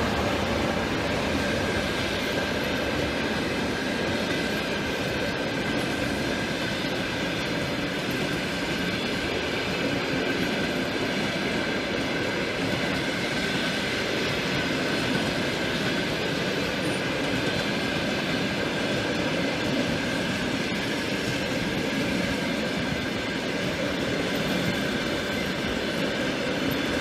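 Train running along the rails: a steady rumble and rattle of wheels on track, with a faint high tone held over it.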